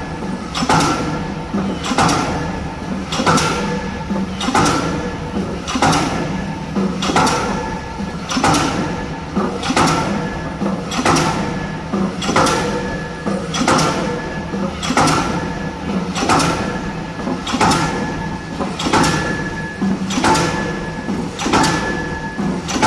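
K25 diesel pile hammer driving a spun concrete pile: a steady rhythm of heavy blows, about one every three-quarters of a second, over a constant machine hum.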